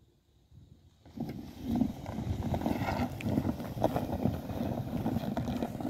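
A stuck minivan being pulled through deep snow on a tow strap, its tires crunching through the snow and the vehicles' engines running. The sound starts about a second in.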